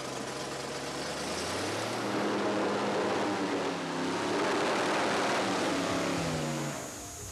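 Airboat engine and caged propeller running, revving up about two seconds in. It is loudest as the boat passes close by and drops away just before the end.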